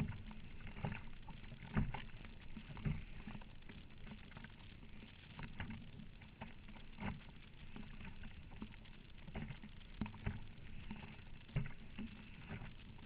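Strong wind buffeting the microphone, with irregular thumps and splashes of choppy water around a sit-on-top kayak out in a 35-knot headwind.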